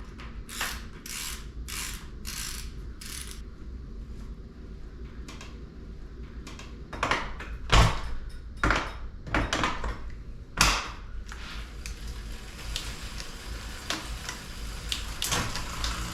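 Mechanical clicking and ratcheting: a few evenly spaced clicks, then several louder knocks in the middle.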